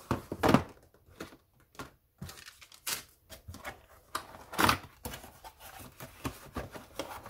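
Cardboard box being opened by hand: the flap is pulled open and the stand inside slides against the cardboard, with rustling of the plastic blister packs moved aside. Two louder scrapes come near the start and a little over halfway through, with lighter rustles between.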